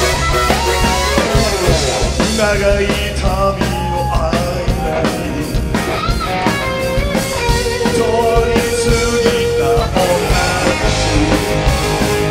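Live rock band playing an instrumental break: drums, bass and keyboards under a lead electric guitar line with bent notes and one long held note near the end.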